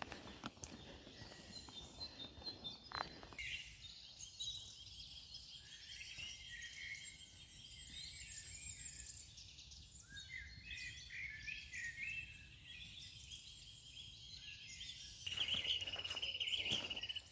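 Several songbirds singing, with short chirping phrases overlapping, and a fast, even trill near the end.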